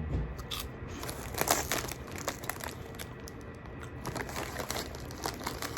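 Crinkling of a Flamin' Hot Cheetos Puffs snack bag, handled in irregular bursts of rustles and small crackles.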